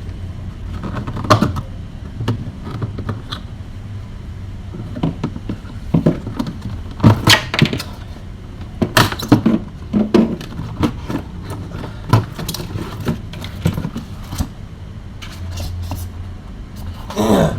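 Irregular clicks, knocks and rattles of plastic parts and tools being handled as an inner panel of a refrigerator is taken off to reach the defrost heater, over a steady low hum.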